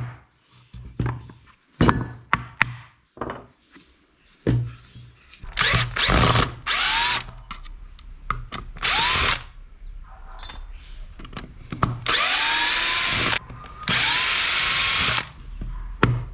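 Power drill running in four short bursts, its pitch rising as each one spins up, with scattered knocks and taps before the first.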